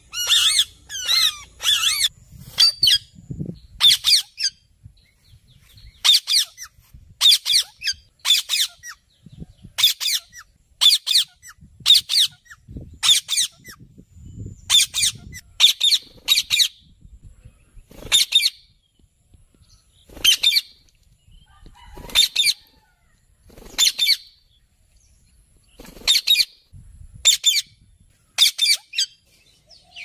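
Rose-ringed parakeet giving short, shrill calls over and over, often two in quick succession, with pauses of a second or two between them.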